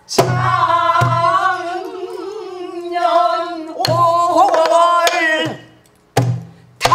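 A woman singing pansori in a long, wavering line with heavy vibrato, accompanied by her own strokes on a buk barrel drum, played with a stick and the open hand. The drum strikes near the start, about a second in, near four seconds, and twice near the end after the singing stops at about five and a half seconds.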